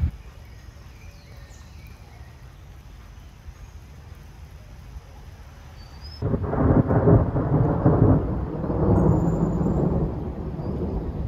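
Faint outdoor background with a few high chirps, then a loud, rough rumble that starts suddenly about six seconds in and carries on with uneven swells.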